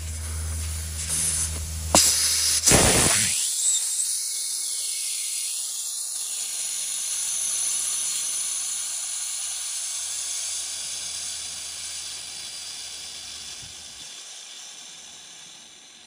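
Air hissing out of a punctured car tire through the plug applicator tip seated in the hole, once the probe is unscrewed: the tire deflating. It starts with a couple of sharp clicks about two seconds in, then a loud steady hiss that slowly fades as the pressure drops.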